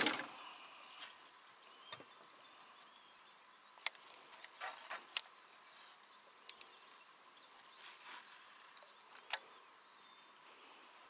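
Quiet outdoor ambience with faint bird or insect chirps. It is broken by a few sharp clicks and taps from fishing rods and reel being handled, the loudest right at the start.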